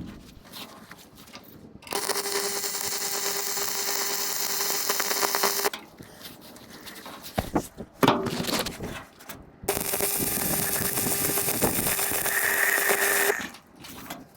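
Electric welder laying two welds of three to four seconds each on steel: a steady crackling buzz with a constant hum under it. Knocks and clicks fill the pause between the welds.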